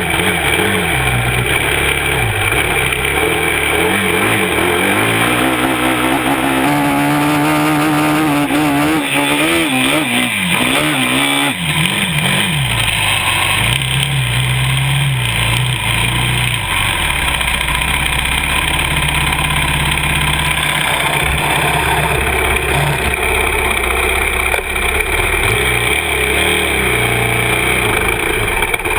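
2011 Yamaha YFZ 450R SE quad's single-cylinder four-stroke engine revving up and down under throttle while being ridden. The pitch swings quickly up and down about a third of the way in, with a steady hiss over it.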